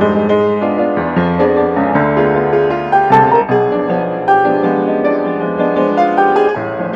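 Piano music: a continuous run of notes and chords in a light, tender style.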